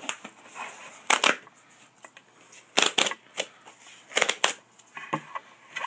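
Flat cardboard mailer box being handled and opened by hand: short crackling rustles of cardboard, four or five separate bursts with quiet in between.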